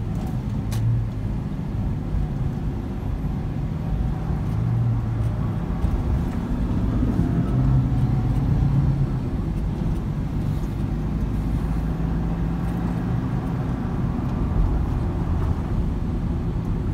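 Car cabin noise while driving: a steady low engine hum and tyre rumble, the engine note shifting a little in pitch a few times.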